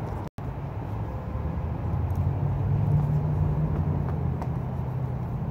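Steady low rumble of road traffic that swells about halfway through, as a vehicle passes. The sound drops out for an instant just after the start.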